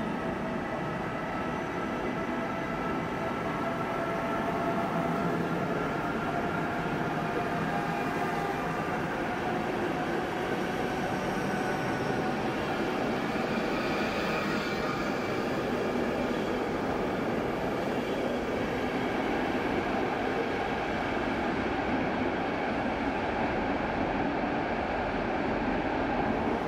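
Passenger train of blue-and-white coaches rolling along the platform and pulling away into a tunnel. The wheels give a steady rolling rumble, with faint thin whining tones over it in the first half.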